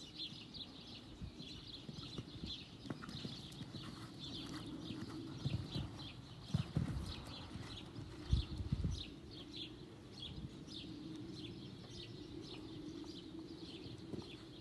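A cantering horse's hooves thudding dully on arena sand, loudest about halfway through as it passes close by. Short high chirps from birds run throughout.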